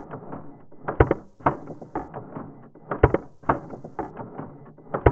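Canon EOS Rebel DSLR's shutter and mirror mechanism firing again and again, played at a tenth of normal speed: deep, drawn-out clacks and rattles about every two seconds. Under them sit a faint steady tone and a faint hiss, the camera's 20,000 Hz tone and 60 to 70,000 Hz static brought down into hearing; the tone is taken by the owner for the PWM drive of the shutter and mirror motor.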